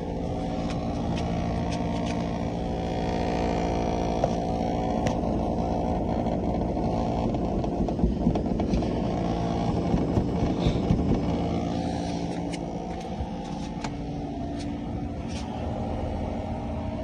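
Air conditioner humming very loudly: a steady, multi-pitched drone, with a few light clicks over it.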